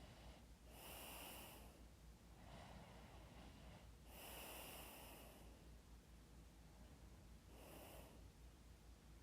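A person's slow, soft breathing close to the microphone, the regular unhurried breaths of someone who has fallen asleep. The two strongest breaths come about a second in and again around four to five seconds, with softer ones between and near the end.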